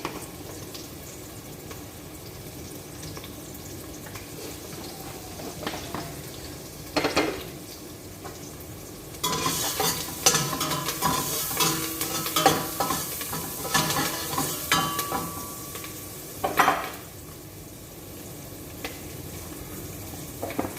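Food sizzling in hot oil in a cooking pot, a steady hiss. From about nine to sixteen seconds in, a metal utensil stirs and scrapes against the pot with rapid clinks and some ringing, and there are single knocks about seven and sixteen seconds in.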